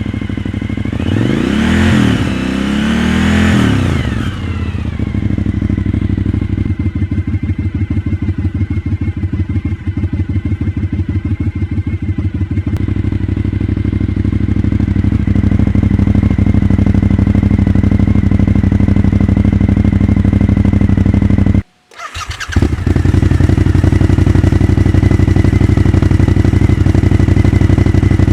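Suzuki SV1000's 1,000 cc V-twin engine running with a steady, pulsing exhaust note. Its pitch rises and falls once about two seconds in. The sound cuts out abruptly for half a second near the end, then comes back.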